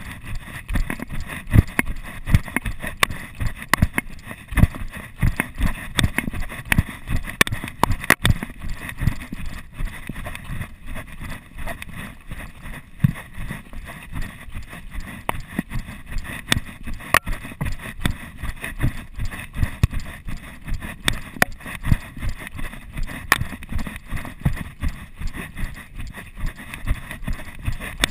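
Footfalls of a person running downhill on a dirt trail, heard through a chest-mounted GoPro Hero 2 camera: a steady rhythm of thuds.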